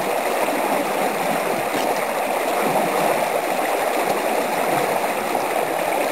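Shallow rocky stream flowing over stones and small rapids: a steady, even rush of water with no pauses.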